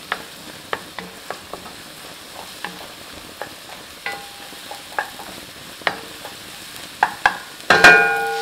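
Wooden spatula stirring scrambled egg, peppers and onions in a nonstick wok over a light sizzle, with scattered taps and scrapes of the spatula on the pan. Near the end the spatula knocks sharply against the pan a few times and the pan rings briefly.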